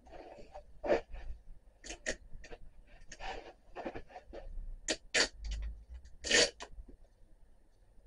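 A string of short, irregular clicks, knocks and scrapes, about a dozen of them, the loudest about a second in, about five seconds in and about six and a half seconds in: something being handled.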